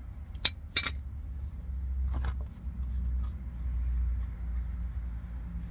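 Two sharp metallic clinks close together, then a fainter one about two seconds in, over a low rumbling handling noise, as tools and metal parts are handled for an oil change.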